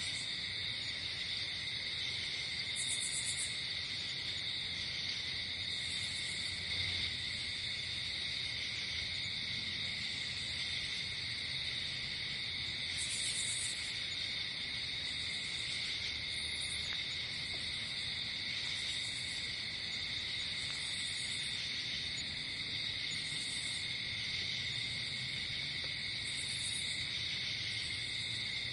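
Nighttime chorus of crickets: a steady, shrill, unbroken chirring, with short higher-pitched insect calls breaking in every few seconds.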